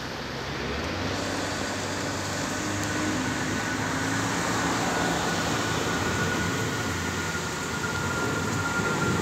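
Jet engines of a British Airways Boeing 777-200, a twin-engine airliner, climbing out overhead: a steady roar that grows slightly louder, with a thin high whine slowly falling in pitch from about three seconds in.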